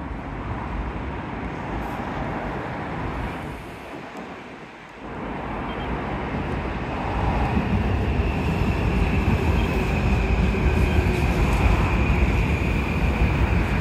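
Electric commuter train coming in on the near track: the rumble of wheels on rail swells over a few seconds, then runs loud and steady with a thin high whine on top.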